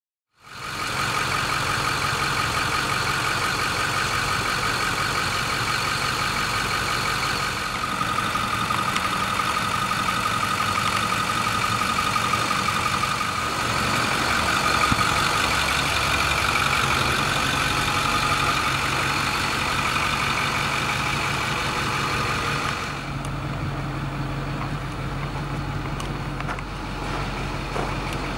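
2008 Ford F-550 service truck's engine idling steadily. About three-quarters of the way through, the sound turns duller and deeper.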